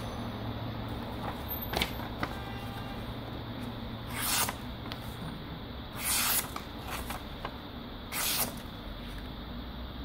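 The blade of a Ganzo Firebird F759M folding knife slicing through a sheet of paper three times. Each cut is a short hiss about half a second long. There are a couple of sharp clicks a second or two before the first cut.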